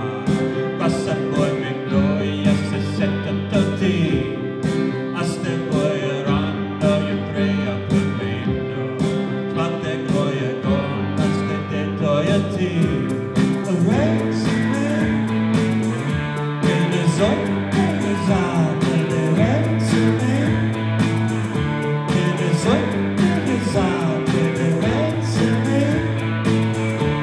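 A live band playing a song, with a red Ace Tone combo organ holding sustained chords under electric guitars, a regular beat and a singing voice.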